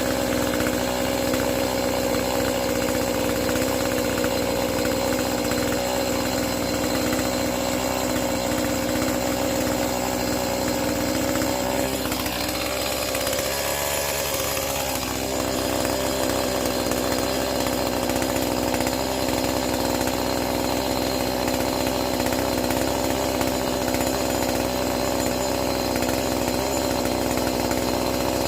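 Two-stroke chainsaw running steadily at high speed. About halfway through, its note sags and then climbs back over a couple of seconds, as when the chain bogs into wood.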